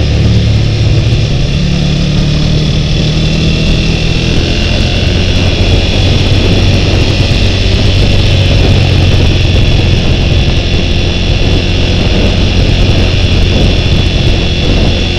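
Motorcycle engine running steadily while riding along, heard from a helmet camera, with a steady rush of road and wind noise; the engine note shifts lower about four seconds in.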